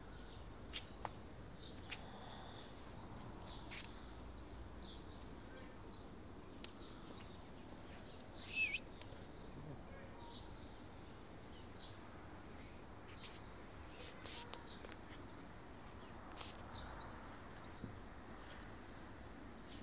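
Faint, scattered chirping of small birds over a steady background hiss, with one louder, downward-sliding chirp about eight seconds in and a few soft clicks.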